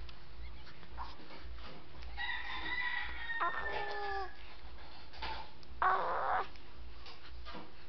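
A rooster crowing once, a long slightly falling call of about two seconds starting about two seconds in. Near six seconds a brief, louder burst of rough noise.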